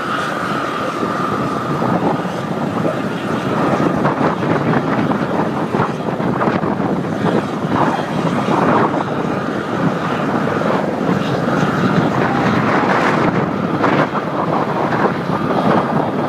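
Four jet engines of a Boeing 747 carrying the space shuttle, passing in a low flyby: a loud, steady rushing roar that grows a little louder about four seconds in.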